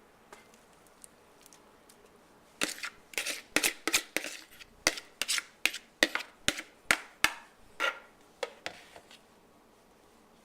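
A mixing spoon scraping and tapping against a mixing bowl as quiche filling is spooned out: a quick run of sharp scrapes and knocks that starts about two and a half seconds in and stops near nine seconds.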